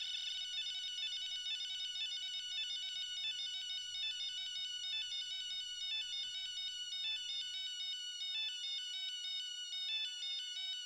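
Small DIY kit synthesizer sounding through its little speaker: a buzzy electronic tone that wavers at first, then about half a second in breaks into a quick run of stepped beeping notes, several a second.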